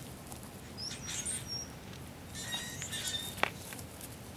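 Short, high bird chirps and quick rising and falling calls, with a few faint ticks and one sharp click about three and a half seconds in.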